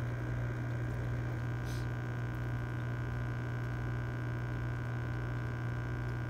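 Steady low electrical hum at an even level, with a faint thin higher tone above it.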